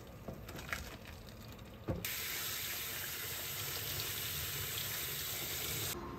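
Cooked sōmen noodles and their water poured into a silicone colander in a stainless steel sink, with a knock about two seconds in. Then a kitchen tap runs a steady stream of water over the noodles in the colander to cool them, shutting off just before the end.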